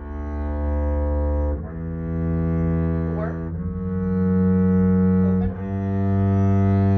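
Double bass bowed in long, even notes: four sustained notes rising step by step, the opening of a D major scale, each held about two seconds.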